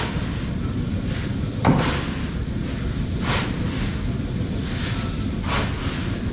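Shovel scraping and scooping into grain, a short stroke every one and a half to two seconds, over a steady low rumble.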